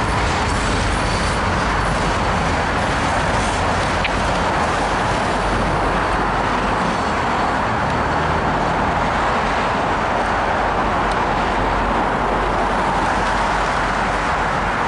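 Steady rumble of a slow freight train with its diesel locomotives moving through, mixed with city traffic noise; no horn or bell.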